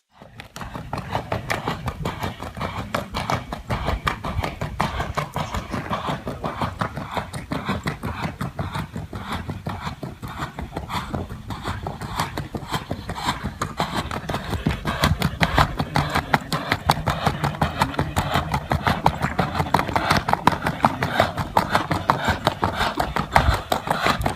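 Colombian criollo horse's hooves striking the ground in a fast, even rhythm while it moves in the trocha pura gait, the breed's quick diagonal gait. The hoofbeats grow louder about halfway through.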